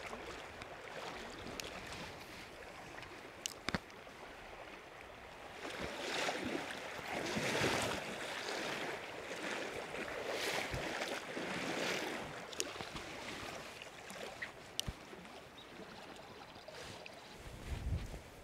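Wading boots splashing through shallow running river water in a series of swells, over the steady rush of the river, with a few sharp clicks scattered through it.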